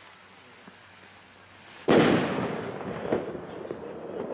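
Firework rocket bursting overhead about two seconds in: a sharp bang with a long rolling echo, then a smaller pop about a second later as the stars spread.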